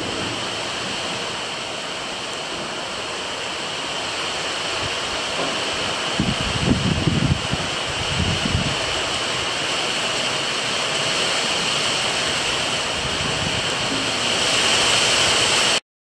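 Steady rain pouring down, a continuous even hiss that grows a little louder near the end, with a few low rumbles about six to nine seconds in.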